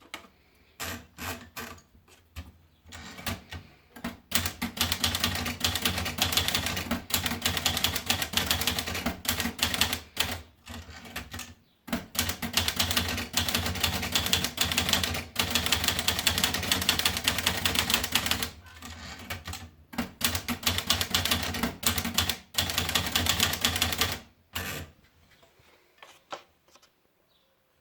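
Olivetti Dora manual portable typewriter being typed on, its keys and typebars clacking. A few separate strokes come first, then long fast runs of typing with brief pauses, and the typing stops near the end.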